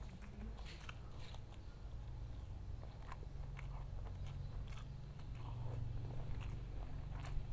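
Close-up chewing of a mouthful of rice and jengkol in chilli sauce, with scattered soft wet mouth clicks and smacks.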